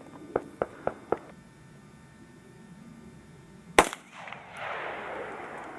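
A single rifle shot from an AR-15 about two-thirds of the way in, a sharp crack whose report trails off over about two seconds; the propane canister it is aimed at does not go off. Four light clicks come in quick succession near the start.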